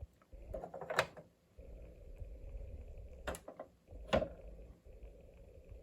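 Light handling noise from a toy train station: several short clicks and knocks as the plastic station and its sound-unit parts are handled, with faint rustling between them.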